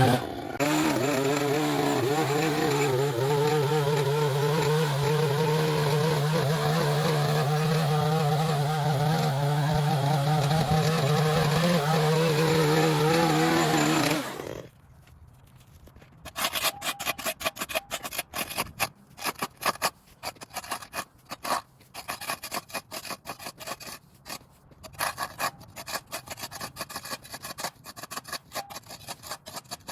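A small engine runs steadily with a low hum and wavering pitch, then cuts off abruptly about fourteen seconds in. Irregular, quieter scraping and rasping follows.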